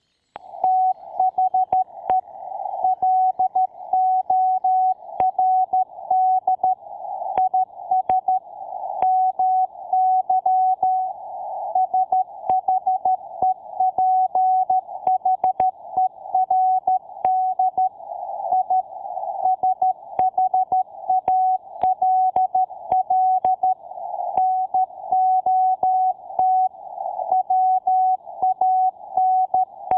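Morse code sent as a single steady beeping tone, keyed on and off rapidly in short dots and longer dashes.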